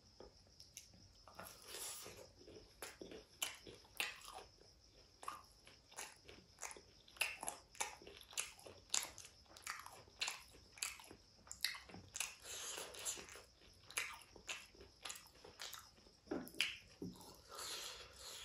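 Close-miked eating: biting and chewing fried chicken, with irregular wet clicks and crunches several times a second.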